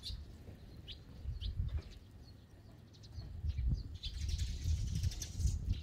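Eurasian tree sparrows chirping: a few short, high chirps scattered through the first seconds, then a busier flurry of chirps and rustling in the second half, over a low background rumble.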